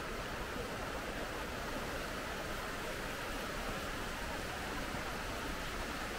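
Steady rushing of a burn's flowing water, an even hiss with no breaks.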